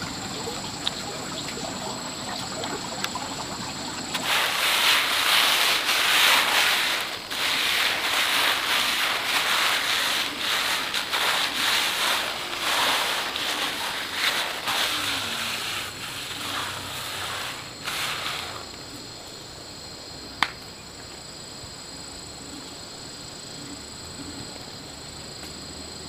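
A steady high insect drone, with a long stretch of loud scraping and rustling made of many short strokes from about four seconds in until about eighteen, and one sharp click a little later.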